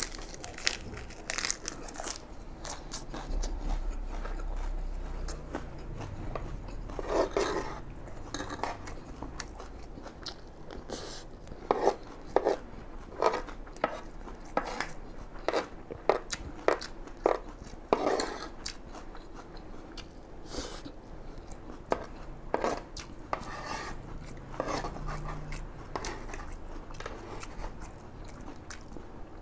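Chewing and crunching fried rice, with a wooden spoon and a fork scraping and knocking against a plate as the last of the rice is gathered up: many sharp clicks, thickest about halfway through.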